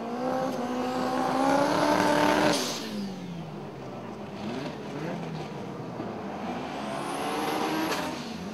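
Drag-racing cars' engines revving hard during burnouts. One engine climbs in pitch and is held at high revs for about two and a half seconds, then drops off abruptly and runs lower and uneven. Near the end a second engine winds up again for its own burnout.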